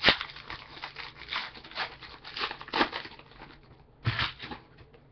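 A trading-card pack wrapper being torn open and crinkled: a sharp rip right at the start, then a run of short crinkles over the next few seconds and another burst of crinkling about four seconds in.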